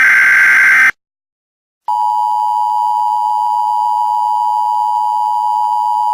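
A harsh, warbling burst of Emergency Alert System SAME header data ends just under a second in. After a second of silence, the steady EAS attention signal begins: a two-tone beep.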